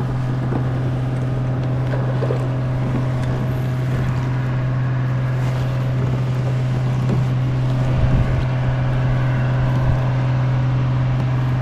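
A boat motor running with a steady low hum.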